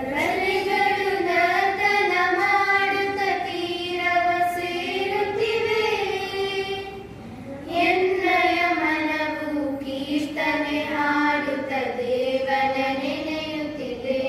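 A group of schoolgirls singing an opening prayer song together into microphones. It comes in two long sung phrases, with a short pause for breath about seven seconds in.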